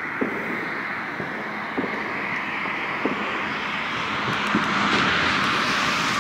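A car approaching on the road, its engine and tyre noise a steady hiss that grows slowly louder, with a few faint pops of distant fireworks.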